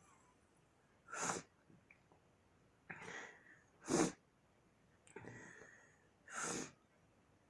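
A man sneezing three times in an induced sneezing fit, the sneezes about two and a half seconds apart and the middle one loudest, with breathy intakes between them.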